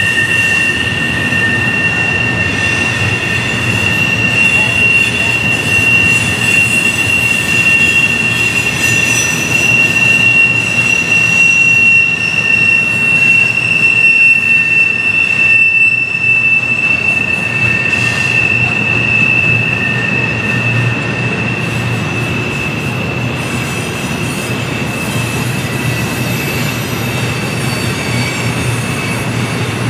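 Double-stack intermodal freight train rolling past on a sharp curve, its steel wheels squealing in a steady, high-pitched screech over the rumble of the cars. The squeal holds two tones, and the lower one fades about two-thirds of the way through.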